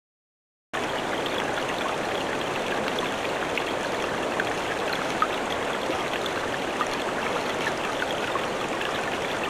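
Steady rushing of a flowing stream, with a few faint clicks on top. The sound is dead silent for the first split second, then the water noise comes in at once.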